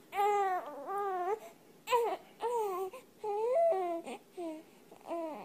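Infant crying in a series of short wails, one after another with brief gaps for breath.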